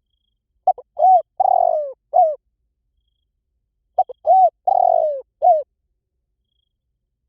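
Spotted dove cooing: two phrases about three seconds apart. Each is a run of four or five short hoarse coos, with a longer falling coo in the middle.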